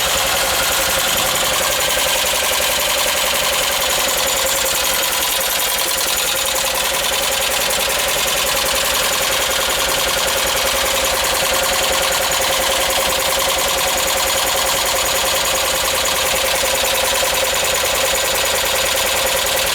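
Volkswagen T3 Westfalia's water-cooled flat-four (Wasserboxer) engine idling steadily with a rapid, even valve tapping: the hydraulic lifters are still pumping up after a cylinder head replacement.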